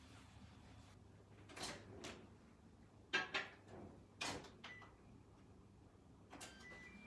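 Microwave oven door handled with a few knocks and a clunk, then short electronic beeps from its keypad as its buttons are pressed near the end.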